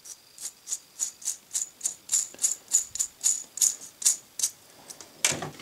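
Dry steel ball bearing, its old grease washed out with acetone, turned back and forth by hand: a rattling rasp of the balls in the races, about four strokes a second. A louder knock near the end.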